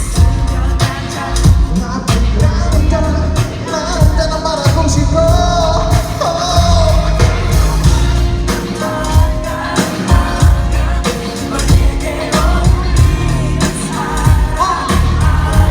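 Live Korean pop music: a singer performing over a loud band or backing track with a strong, steady beat, heard through concert-hall amplification.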